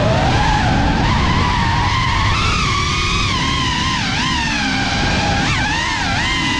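Motors and ducted propellers of a GEPRC CineLog35 FPV cinewhoop whining in flight, over a rumbling wash of prop noise. The pitch rises and falls with the throttle: it climbs at the start, dips about four seconds in, and dips again near six seconds.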